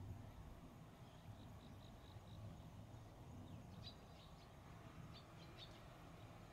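Faint small-bird chirps: a quick run of about five even high notes, then a scatter of short, sharp chirps, over a low, steady background rumble.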